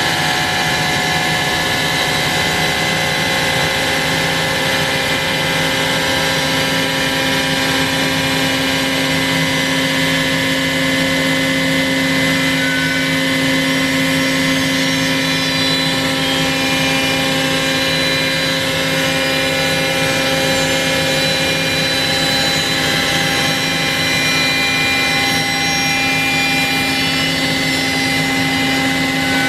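CNC router spindle milling a wooden guitar neck: a steady, loud machine whine made of several held tones over a noisy hiss, with little change in level.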